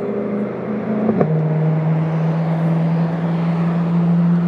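Car engine running with a steady drone that drops sharply in pitch about a second in, as at a gear change, then holds steady.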